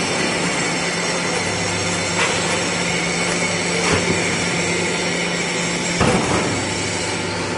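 Dry ice block press machine running: a steady hiss over a low hum, with a few short knocks about two, four and six seconds in.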